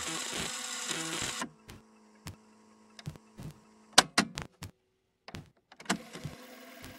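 Music ends about a second and a half in, followed by a handful of scattered sharp clicks. Near the end a steady low mechanical whir starts: a VCR rewinding a tape.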